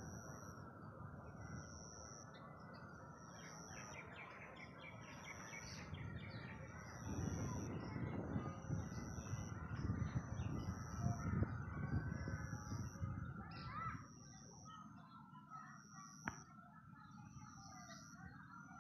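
Birds chirping over a low rushing background that grows louder for several seconds in the middle. A faint high-pitched pulse repeats about once a second.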